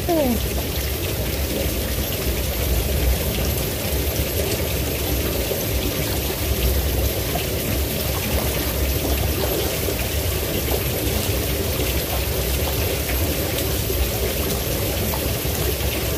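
Shallow stream running steadily over rocks, a continuous rush of water with a low rumble underneath.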